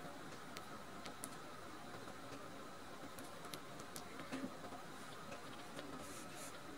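Quiet room tone: a steady faint hiss with a few small scattered clicks and soft rustles, slightly busier about four and a half seconds in.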